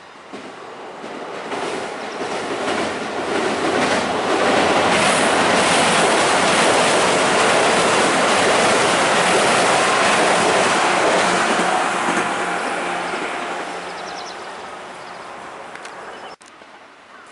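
Electric commuter train crossing a steel girder railway bridge. The rumble of its wheels on the bridge builds over a few seconds, holds loud, then fades as the train passes, and it cuts off suddenly near the end.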